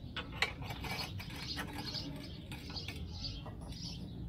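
A few light metallic clinks of a steel wire rod being handled against a homemade angle-iron stirrup bender, mostly in the first second and a half, while birds chirp over and over in the background.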